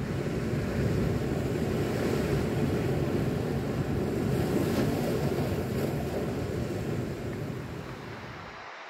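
Sea surf washing on the shore, mixed with wind rumbling on the microphone. The rumble builds in over the first second, swells in the middle, eases off and cuts off abruptly just before the end.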